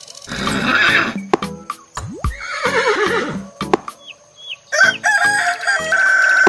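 Background music with a steady beat, overlaid with a horse whinnying sound effect about halfway through and then a long rooster crow near the end.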